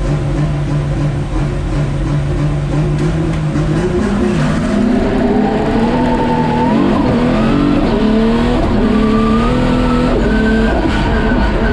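Turbocharged VR6 engine of a front-wheel-drive Golf Mk2 race car, heard from inside the cabin. It holds a steady high-revving note, then launches about four seconds in and accelerates hard, its pitch climbing and dropping back at each of several upshifts.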